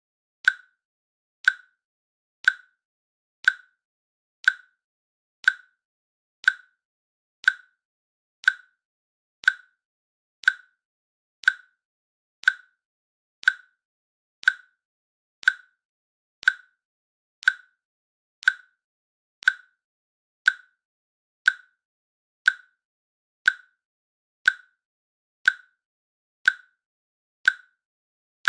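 Countdown timer clicking once a second: a short, sharp click with a brief high ring, evenly spaced, marking each second.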